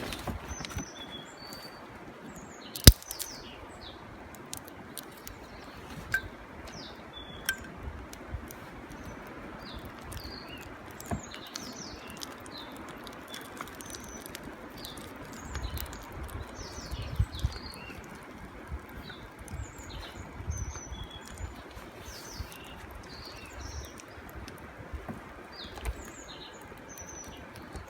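Small birds chirping on and off over a steady outdoor hiss, with a few sharp clicks, the loudest about three seconds in.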